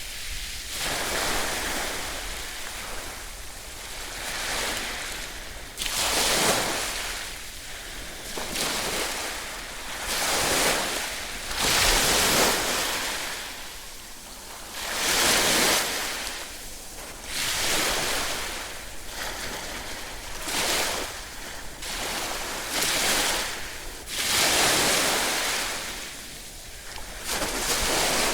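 Ocean waves breaking and washing on the shore, a steady hissing surf that swells and falls back every few seconds.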